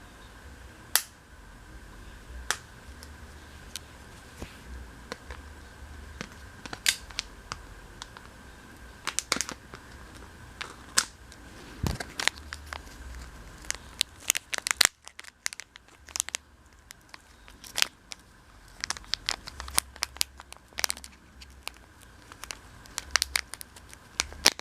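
Fishing lure packaging being handled and opened by hand: plastic and cardboard crinkling and tearing, with scattered sharp clicks and crackles.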